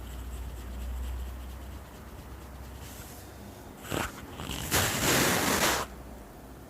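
Hands rubbing against hair and skin during a head massage: a short scrape about four seconds in, then about a second of loud rubbing.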